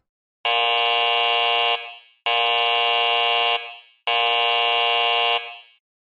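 Warning buzzer sound effect: three long, evenly spaced buzzes, each lasting about a second and a quarter and cutting off with a short fading tail.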